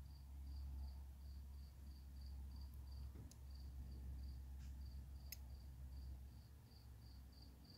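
Spring peepers calling at night: short, high peeps repeated about three times a second, with a low steady hum underneath.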